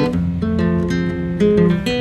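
Background music: an instrumental passage of a song with strummed acoustic guitar, with no singing.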